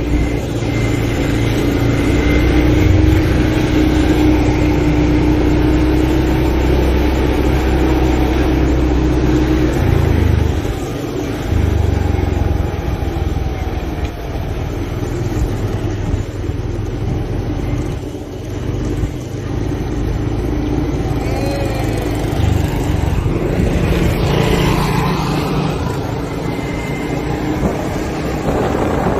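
Motor scooter engines running at road speed, a steady drone that eases off briefly about ten seconds in and again a little later.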